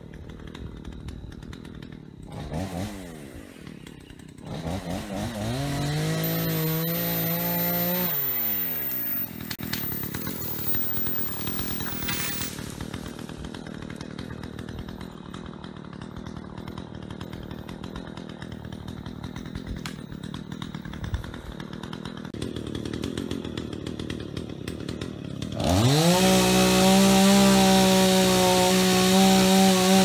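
Craftsman chainsaw engine revving: a short blip, then opened up to full throttle and held for a few seconds before dropping back, running lower and rougher through the middle, then opened up suddenly again near the end and held at full speed.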